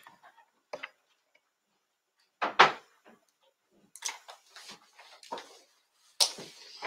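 Hands handling small adhesive Velcro pieces and their backing paper at a work table: a short loud rustle about two and a half seconds in, scattered soft clicks and rustles after it, and another louder rustle near the end.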